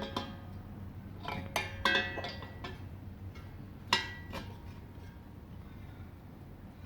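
Light metallic clinks and taps with a brief ring, several in the first four and a half seconds, the loudest about four seconds in, as gas fittings are handled and screwed together.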